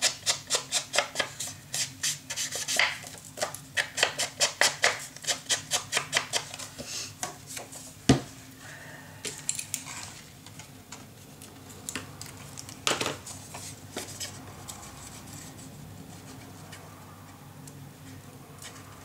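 Quick, rhythmic rubbing strokes, about three a second, as a foam ink blending tool is swiped along the edge of a sheet of paper to distress it. A single sharp knock about eight seconds in, a brief scrape a few seconds later, then quieter paper handling.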